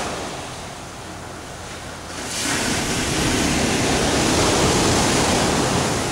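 Sea surf breaking and washing onto the shore in a steady rush, swelling louder a little over two seconds in as a wave comes in.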